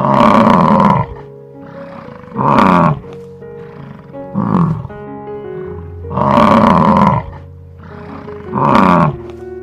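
Bison bellowing: five loud, rough roars about two seconds apart, the first and fourth about a second long and the others shorter, each dropping in pitch. Soft background music plays under them.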